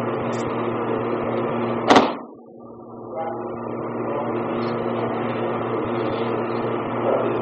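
Steady electrical hum, broken about two seconds in by one sharp knock. The sound then drops away for about a second before the hum returns.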